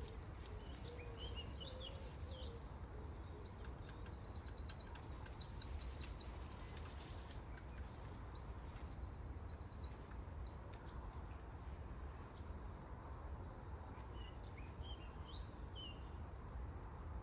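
Small birds singing faintly: short high chirps, with two rapid trilled phrases in the middle, over a steady low background rumble.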